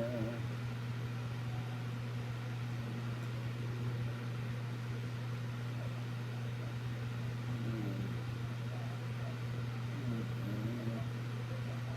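A steady low hum with an even hiss underneath, with faint snatches of a voice now and then.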